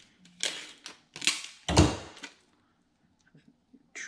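Packaging tape being handled and pressed onto a wooden box joint: three short rasping noises in the first two seconds, the last with a dull knock, then quiet.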